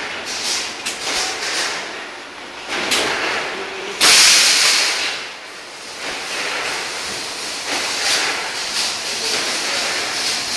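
Spiral paper tube winding machine running with a steady hissing, rattling noise. About four seconds in, a sudden loud burst of hissing lasts a second or so and then dies away.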